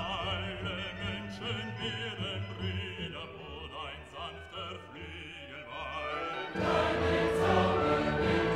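Background music: classical singing, a voice with a wavering vibrato over accompaniment. About six and a half seconds in it turns louder and fuller.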